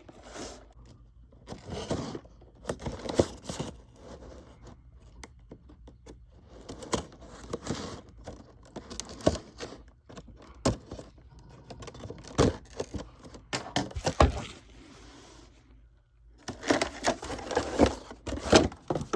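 Action figure packaging being opened by hand: cardboard and plastic scraping, tearing and crinkling in irregular bursts with sharp clicks, busiest near the end.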